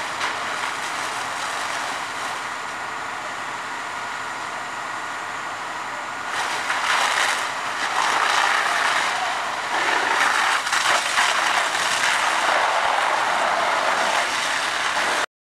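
Deck gun (master stream monitor) on a Spartan Metro Star pumper flowing water at a house fire: a steady rushing hiss of the water stream. It grows louder about six seconds in and again a couple of seconds later, then cuts off suddenly near the end.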